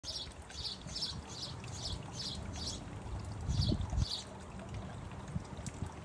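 Water from a fountain birdbath trickling steadily over a glazed pot into a terracotta basin. A small bird chirps in quick high notes, about three a second, for the first few seconds, then twice more. A brief, louder low rumble comes about halfway through.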